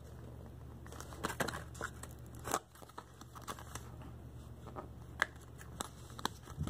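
Paperboard earbud packaging insert being handled: faint scattered rustling, scraping and sharp clicks of card as the earbuds are worked out of their slots.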